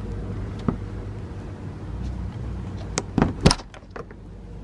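A few sharp plastic clicks and knocks as a push-in plastic plug is worked out of a truck's wheel well liner, loudest about three seconds in, over a low steady rumble.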